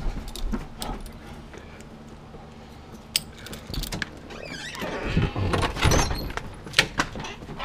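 Light metallic jingling and clicking, then the front door's latch and handle rattling as the door is opened, busiest in the second half.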